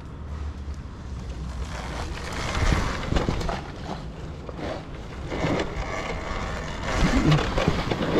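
Talaria electric dirt bike ridden over a bumpy forest dirt trail: a rough, steady noise of tyres on dirt and roots, broken by several knocks from the bumps, with no engine note.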